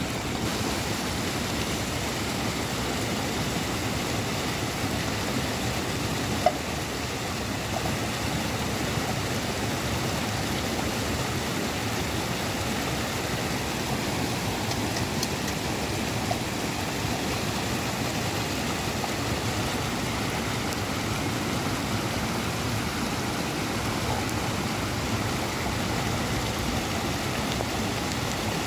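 Heavy rain falling with a steady hiss, with one sharp knock about six and a half seconds in.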